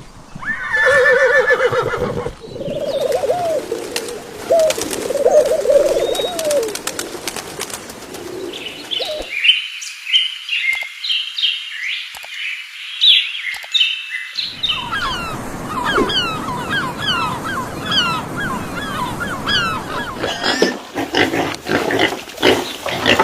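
A series of animal calls, chiefly birds: pitched calls in the first few seconds, then rapid high chirps and tweets from about nine seconds in, followed by quick repeated chirps.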